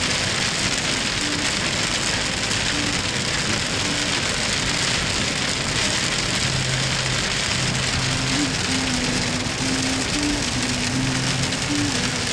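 Heavy rain beating on a car's windshield, heard from inside the moving car as a loud, steady hiss.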